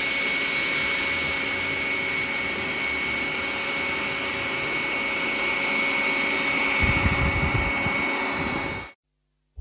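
Roborock S50 robot vacuum running with a steady rushing noise and a high whine, a few low knocks about seven seconds in, then cutting off suddenly near the end.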